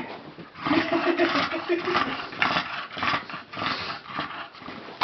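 Bulldog making rough play noises in a run of short bursts, with a steadier low sound about a second in, while she plays with her hedgehog toy.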